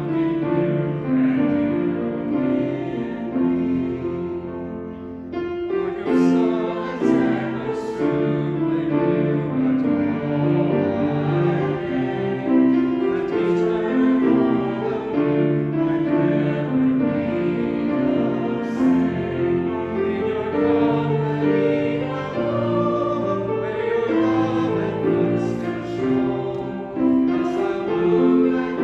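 Music: singing with piano accompaniment, a slow sacred song with sustained notes.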